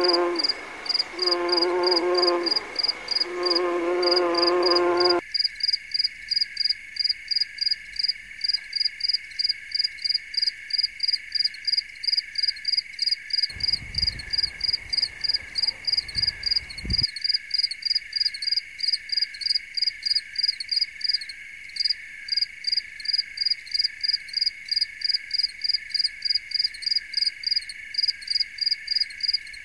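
A bumblebee buzzes in three short bursts at the start. Then crickets chirp in a steady rhythm, about three high chirps a second, over a continuous high trill. A low rumble comes in for a few seconds in the middle.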